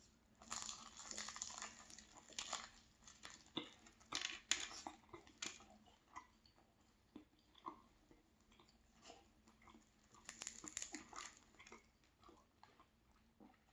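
Faint crackling and chewing of a dense, flaky lemon curd pastry being bitten and eaten, in scattered bursts of small crunches.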